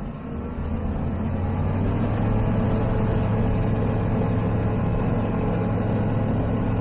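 Zenith CH 701 STOL's ZD C100 engine, a 100 hp Rotax 912ULS clone, and its propeller going to full power for the takeoff roll. It gets louder over the first two seconds, then runs at a steady high power.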